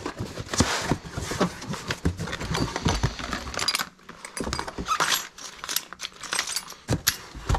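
Handling noise from rummaging through cardboard boxes and a plastic basket of kitchen utensils: rustling with irregular clicks, clinks and knocks.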